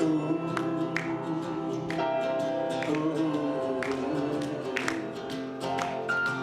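Music: acoustic guitar strummed or plucked about once a second, with a singing voice.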